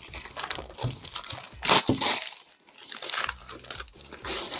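Brown paper bag crinkling and tearing as it is pulled open by hand, in irregular crackles with two louder ones about two seconds in.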